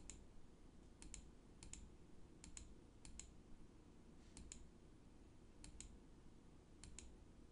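Faint clicking of a computer being operated to step through a slide presentation: seven close pairs of short clicks, spaced irregularly about half a second to a second and a half apart, over faint room hiss.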